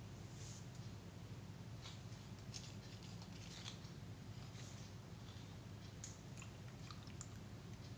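Scissors snipping at small slime-filled balloons: a few short, crisp snips and crackles spaced irregularly over a faint low hum.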